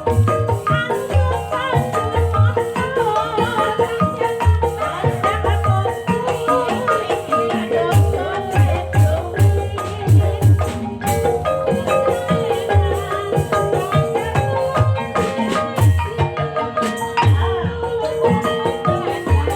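Banyumasan gamelan music accompanying an ebeg dance: mallet-struck keyed instruments playing busy interlocking notes over steady low drum strokes.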